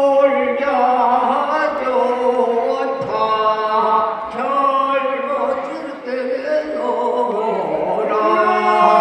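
A group of elderly men singing a Korean deulsori field work song together in a chanting folk style, with long held notes from several overlapping voices.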